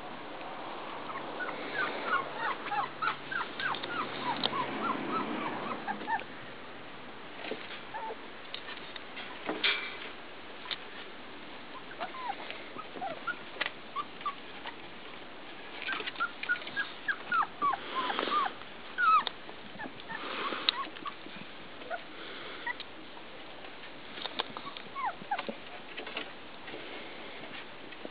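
Four-week-old puppies whimpering, many short high squeaky cries coming in clusters, with some rustling in between.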